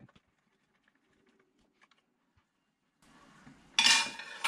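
A few faint ticks as a small Allen key turns the hydrofoil's rear-wing fixing screws, almost silent for about three seconds. Then a loud, sudden burst of metallic clatter and handling noise near the end.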